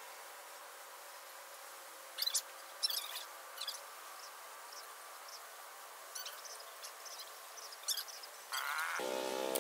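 Outdoor animal sounds: a faint steady drone with a few short high chirps scattered through it, then a louder buzzing drone of many evenly spaced tones starts near the end.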